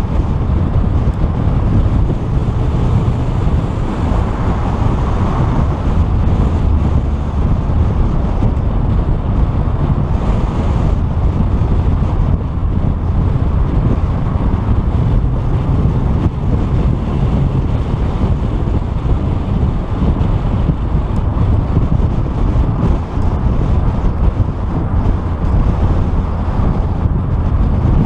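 Steady wind buffeting on a hood-mounted camera's microphone over the road and engine noise of a 2014 Ford Mustang GT with its 5.0 V8, cruising at a steady speed.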